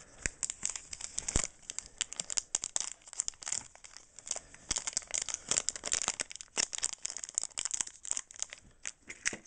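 Crinkling and tearing of a plastic wrapper as it is peeled open around a sealed stack of Pokémon trading cards, a dense run of irregular sharp crackles.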